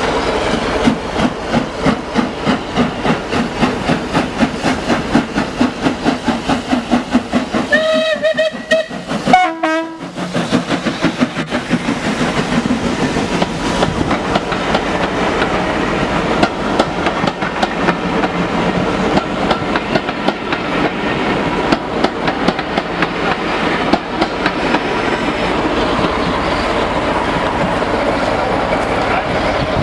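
Steam train on a heritage line: the locomotive chuffs in an even rhythm, then sounds its whistle twice, about eight to ten seconds in. After that the carriages roll past close by, with a steady rumble and the clickety-clack of wheels over the rail joints.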